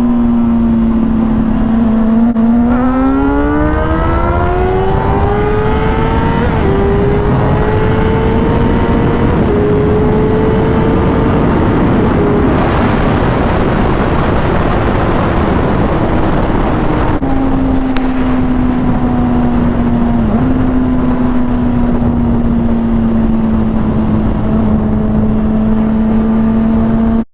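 Motorcycle engine pulling hard through the gears in a roll race. Its pitch climbs steeply with two brief dips at upshifts, holds, then drops back to a steady cruise about two thirds of the way through. Heavy wind rush runs throughout.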